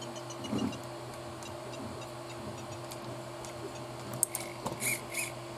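Small clicks and rustles of hands adjusting plastic parts on a hobby RC car's servo setup, mostly about four to five seconds in, over a faint steady hum.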